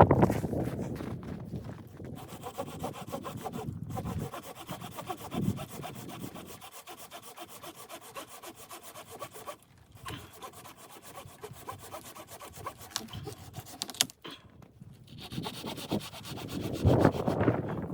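Hand saw cutting through wood in a steady run of rasping strokes, stopping briefly a few times.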